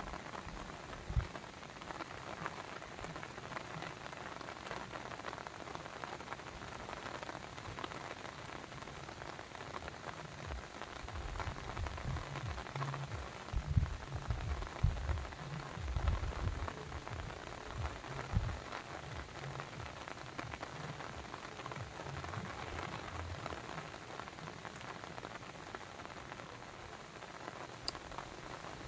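Steady splashing and trickling of water, with irregular low thumps and rumbles through the middle stretch.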